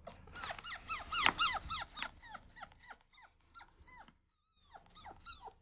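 Fennec fox giving a fast run of short, high, downward-sliding chirps, about five a second and loudest in the first two seconds. The calls then thin out, with a short pause about four seconds in.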